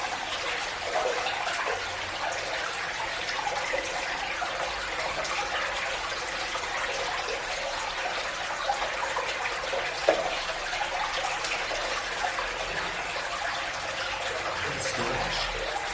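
Steady running water in the tunnel, an even rushing trickle, with one sharp knock about ten seconds in.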